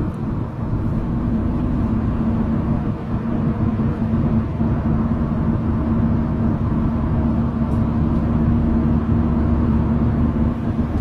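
Steady low engine drone with a constant hum, like riding inside a running vehicle.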